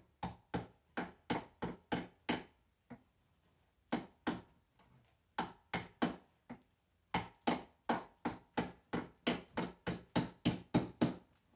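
Hammer tapping a tack into a vanity to hold its curtain: a run of quick, light strikes about three a second, pausing briefly twice, as she works a tack that keeps going in sideways.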